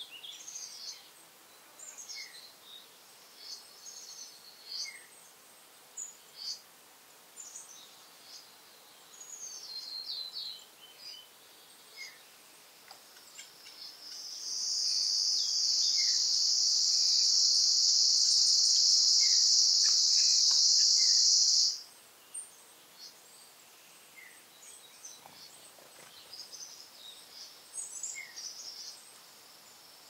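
Scattered bird chirps, with an insect's high, steady buzz that swells in about 14 seconds in, holds for about eight seconds as the loudest sound, and cuts off suddenly.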